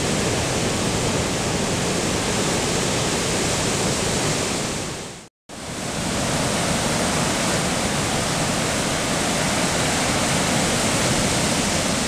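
Steady rushing noise of ocean surf, fading out about five seconds in, a brief gap, then fading back in at the same level.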